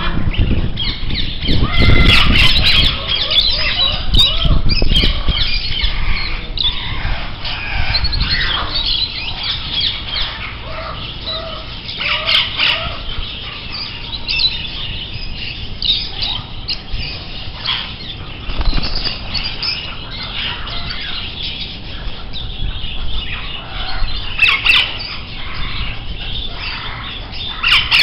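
Several birds chirping and squawking over one another in a steady chorus of short calls, with low thumps mixed in during the first few seconds.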